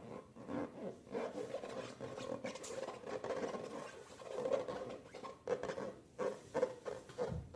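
Rubbing and squishing noises from hands working balloons and slime, with a quick run of short clicks and smacks near the end.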